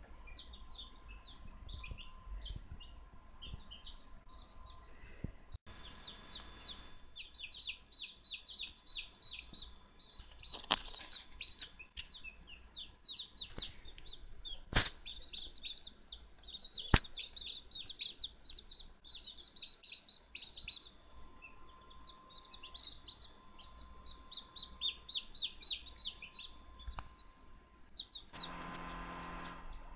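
Newly hatched blue-egg-layer chicks peeping: many short, high, falling peeps, sparse at first and then a dense chorus from about seven seconds in. A few sharp knocks come in the middle, and a steady low hum takes over near the end.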